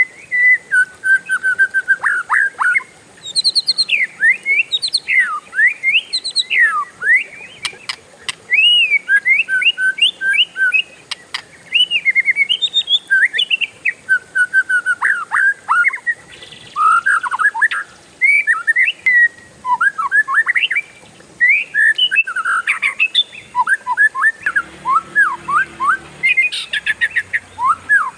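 Oriental magpie-robin (kacer) singing a long, fast run of varied whistled phrases with only brief pauses.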